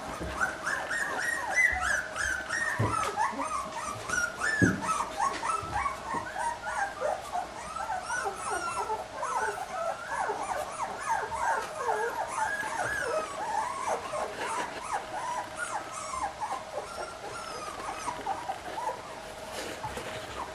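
A litter of young Lagotto Romagnolo puppies, about three weeks old, whimpering and squeaking almost without pause: many short, high cries rising and falling and overlapping. A steady faint hum runs underneath, and there are a couple of soft knocks.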